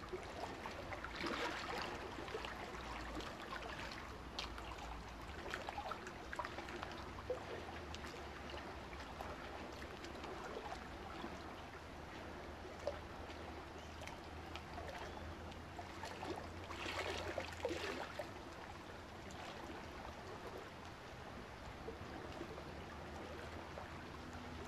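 Faint steady rushing noise with a low hum underneath, swelling softly a couple of times, with a few light ticks.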